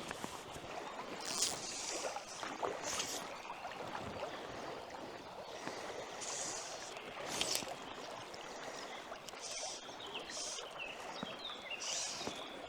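A person wading through a river, water splashing around the legs every second or two over the steady rush of the current.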